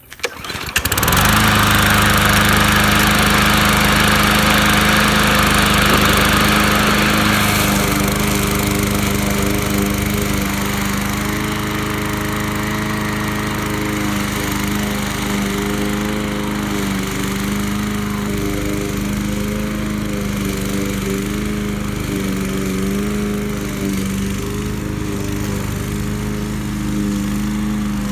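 New Troy-Bilt walk-behind gas lawn mower pull-started: the engine catches within the first second and runs steadily. It is loudest for the first seven seconds or so, then runs a little quieter with its pitch wavering slightly as it cuts grass.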